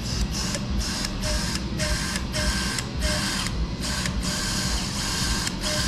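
Surgical power drill driving a bit through a drill guide into bone, whirring in short repeated bursts with brief gaps. It is drilling the pilot hole for a cortical bone screw through the plate.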